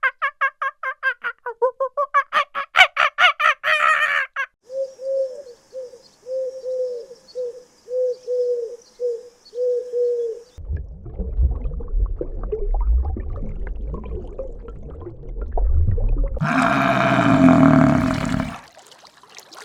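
A run of animal calls: first rapid pitched clucking of fowl, then a string of about nine short, evenly spaced calls. After that comes a low rumbling noise with scattered clicks, and a loud call near the end.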